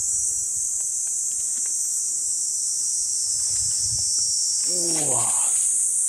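Niiniizemi cicadas (Platypleura kaempferi) singing in the garden trees: a steady high-pitched drone. A short voiced sound, falling in pitch, comes about five seconds in.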